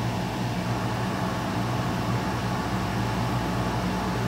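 A steady low machine hum with an even hiss, unchanging throughout.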